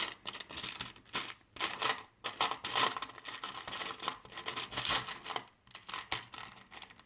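Small plastic Lego Technic pieces clattering and clicking as they are handled and sorted, in quick irregular runs of rattles with a few short pauses.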